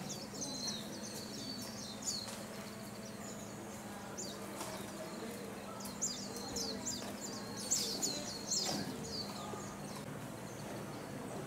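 Small birds chirping in quick runs of high notes, in bursts near the start and again in the second half, over a steady low hum.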